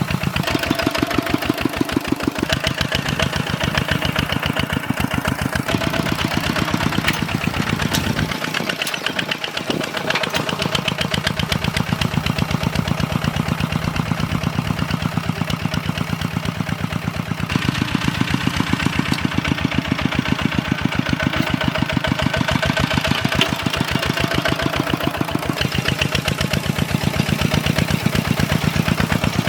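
Walk-behind two-wheel tractor's single-cylinder engine running steadily under load while plowing, with a fast, even chugging beat. Its note shifts about a third of the way in and again near the end.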